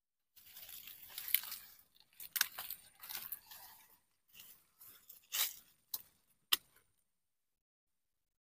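Dry leaf litter being disturbed, crunching and rustling in a run of irregular bursts with a few sharp crackles, stopping about seven seconds in.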